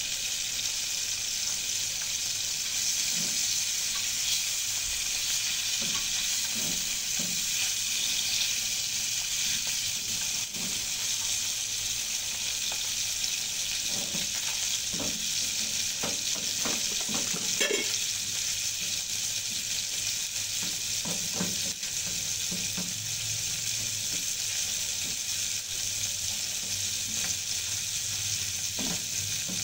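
Salmon frying in oil in a pan over low heat, with a steady sizzle. A utensil scrapes and knocks against the pan now and then.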